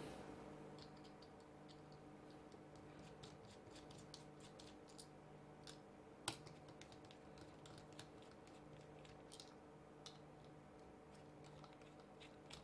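Faint clicks and light scrapes of a small screwdriver working tiny screws out of a circuit board in a plastic case, with one sharper click about six seconds in. A faint steady hum sits underneath.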